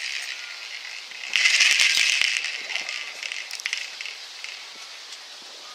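Rattling and rustling with scattered knocks as a dog leaps at and tugs a ball hung on a line from a tree branch, shaking the branch. The loudest burst comes about a second and a half in and lasts about a second, then dies away.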